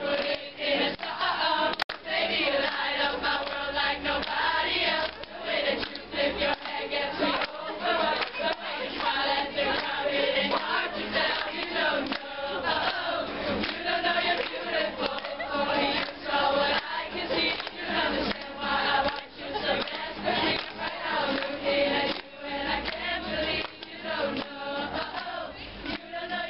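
A large group of girls singing along together to a strummed acoustic guitar, with some hand-clapping along.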